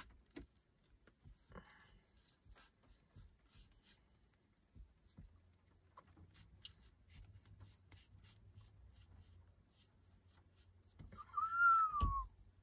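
Knife slicing through a salami chub, faint scraping and clicking. Near the end a short high tone rises and then falls over about a second, ending in a low thump.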